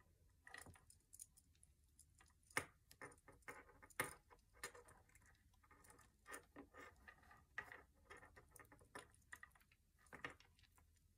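Faint, irregular small clicks and rustles of hands tying knots in the cord of a beaded pacifier clip, with the beads on the strand knocking lightly.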